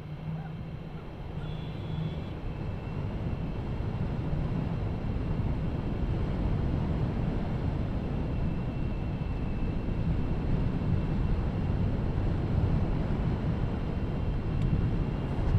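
Steady low rumble of a vehicle driving alongside a camel race, engine and tyre noise on sand, growing louder over the first few seconds and then holding.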